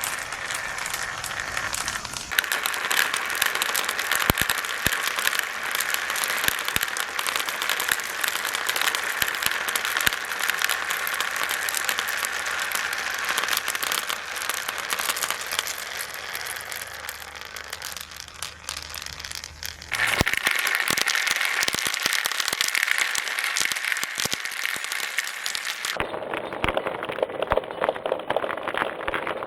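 Many marbles rolling and clattering down a marble run, a dense crackle of small clicks that changes abruptly twice in the second half.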